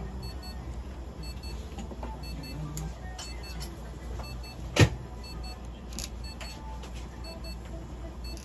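Steady low electrical hum from clinic equipment, with faint short high beeps repeating at an even pace. Scattered light clicks from handling, and one sharp knock a little before the halfway point.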